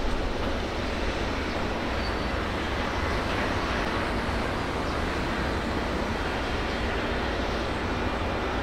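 JR Freight EF510 electric locomotive hauling three flat wagons, moving off slowly across the yard: a steady rumbling noise.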